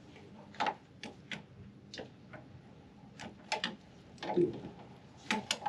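About ten irregular light clicks and ticks as the radiator drain petcock is handled and turned closed by hand.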